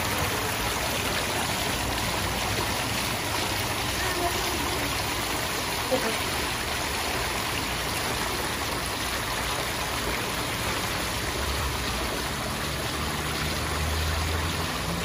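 Steady rush and splash of water pouring from a wall-mounted sheer waterfall spout into a swimming pool, with water spilling over the pool's overflow edge. A low steady hum joins in during the last few seconds.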